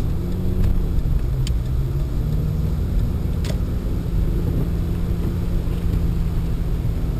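Pontiac Sunfire heard from inside the cabin while driving on a snowy road: a steady low rumble of engine and tyres, with a couple of faint clicks.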